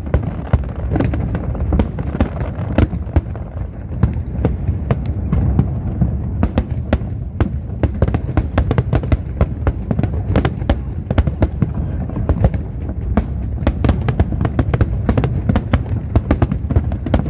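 Fireworks display going off continuously: a dense, rapid run of sharp cracks and bangs over a steady heavy rumble of shell bursts.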